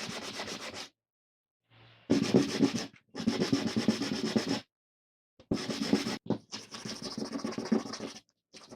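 Hand sanding: abrasive paper rubbed back and forth in quick strokes, in several spells of one to two seconds that start and stop abruptly.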